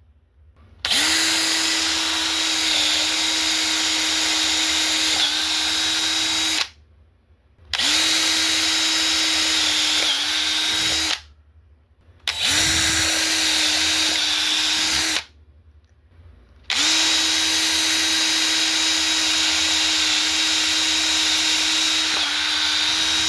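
Electric drill boring holes through a wooden block, running at steady speed in four long bursts with short pauses between them. Each burst starts with a brief spin-up.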